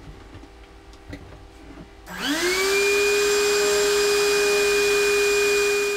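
A vacuum cleaner switched on about two seconds in, its motor whine climbing quickly to speed and then running steadily, sucking rainwater out of the bilge. Before it, a few light knocks and clicks as the hose is handled.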